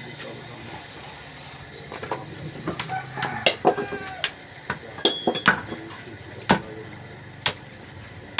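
Hammer striking metal at irregular intervals, about six sharp blows over the second half, some with a short metallic ring, over a steady low hum.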